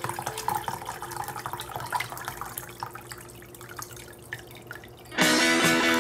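Water poured from an electric kettle's spout into a plastic tub of slime mixture, splashing and dripping, and thinning out toward the end. Loud guitar music starts abruptly about five seconds in.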